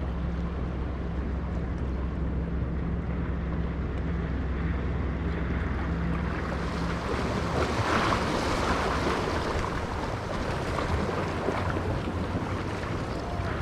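Surf washing over jetty rocks, with a steady low motor hum underneath that dies away about halfway through. From about seven seconds the rushing of the water swells louder and brighter.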